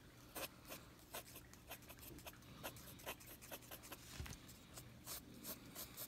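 Faint pencil strokes on paper: short, quick scratching strokes, about two or three a second, as long hair is sketched in on a drawing.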